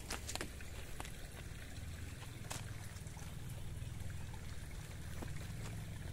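Water trickling steadily in a concrete drainage channel, with a few faint clicks.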